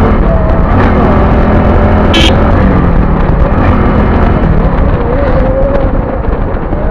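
Motorcycle engine running steadily at cruising speed, heavily mixed with wind and road rumble on the handlebar-mounted camera's microphone.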